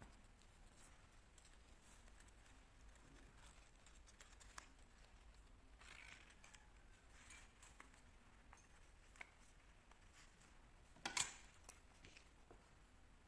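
Faint rustling and creasing of thin origami paper being handled and pulled open, with a short burst of sharp paper crackles near the end; otherwise near silence.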